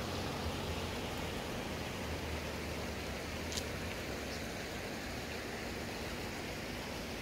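Shallow river running over rocks, a steady rushing of water, with one short faint click about three and a half seconds in.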